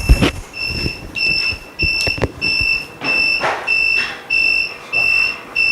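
Electronic buzzer of an OCA vacuum laminating machine beeping in an even, high-pitched on-off pattern, about one and a half beeps a second: the signal that the automatic laminating cycle has finished. A loud knock comes right at the start.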